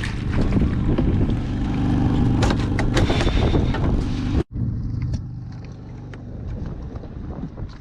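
A motor running steadily with wind buffeting the microphone and scattered knocks, loud until a sudden break about halfway through, after which the motor hum goes on more quietly.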